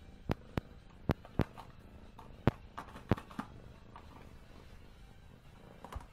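Empty plastic yogurt cup knocked and tapped about as a cat pushes it around: a series of about nine sharp, irregular clicks, the loudest about a second and two and a half seconds in.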